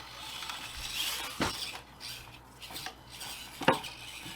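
Light scraping and rubbing with a few sharp plastic knocks, two of them clearest, as Axial SCX24 1/24-scale micro crawlers are handled or driven over a hard surface.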